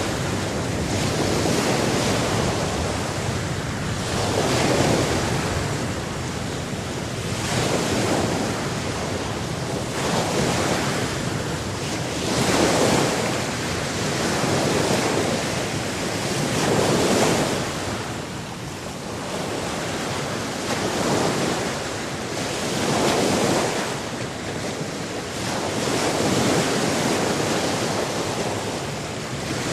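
Sea waves washing in, a continuous rush of water that swells and ebbs every two to three seconds.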